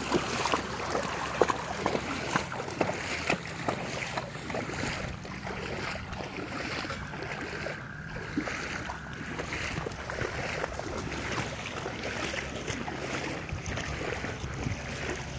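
Shallow floodwater sloshing and splashing in irregular small bursts, as someone wades through it, with wind rumbling on the microphone.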